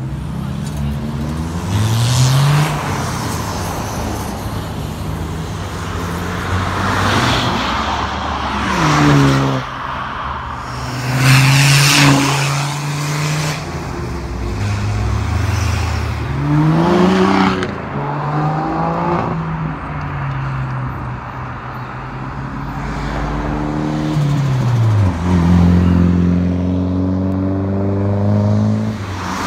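A series of cars accelerating hard past one after another, their engines revving, the engine notes rising and falling several times as each pulls away.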